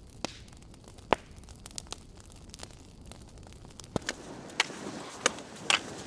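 Irregular crackling with scattered sharp snaps over a low hiss, one snap standing out loud about a second in. The crackling grows denser in the last two seconds.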